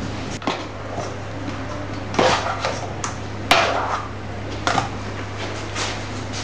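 Kitchen clatter: scattered light knocks and clicks, about eight of them, the loudest about two and three and a half seconds in, over a steady low hum.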